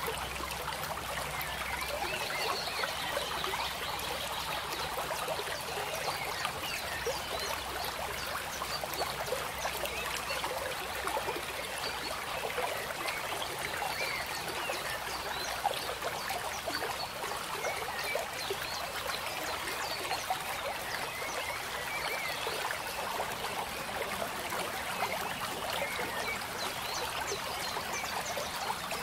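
Steady trickling water, a dense, even patter of small splashes that keeps on without a break.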